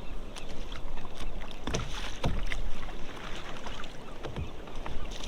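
Irregular clicks and knocks of fishing gear being handled on a kayak, with a couple of heavier thumps about two seconds in, while a small hooked fish is landed.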